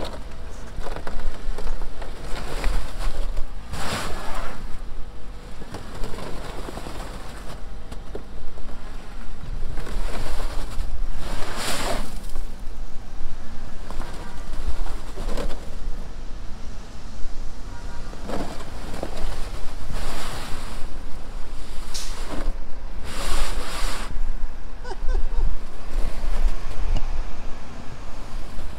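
Front-wheel-drive sedan's engine revving as its front tyres spin and churn in packed snow and slush, trying to pull out of a snowbank. The noise comes in several louder surges.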